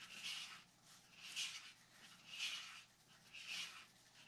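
A stick stirring freshly mixed epoxy resin and hardener in a mixing cup, scraping the sides as it goes round. Soft, even scraping strokes about once a second, four in all: a slow stir meant to mix without whipping in air bubbles.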